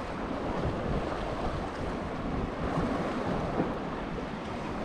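Sea waves washing against rocks, with wind buffeting the microphone in a steady rumble.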